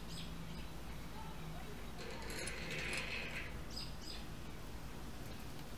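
Small birds chirping: short, quick high chirps at the start and again a little under four seconds in, with a brief rustling noise in between, over a steady low background hum.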